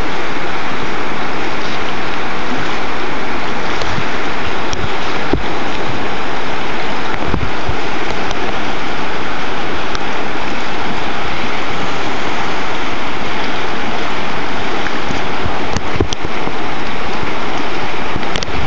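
River whitewater rushing loudly and steadily through a rapid, with a few brief knocks now and then.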